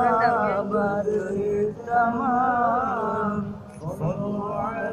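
A man's voice chanting a wavering, melodic line, with a short break shortly before the end.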